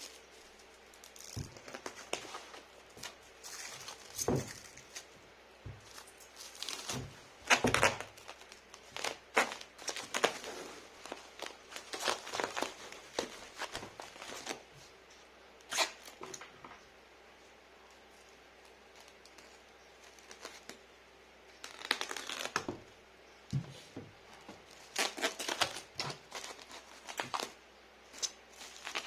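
Packing materials being handled: plastic and wrapping crinkling and tearing in irregular bursts, with sharp knocks in between and a quiet pause about halfway through.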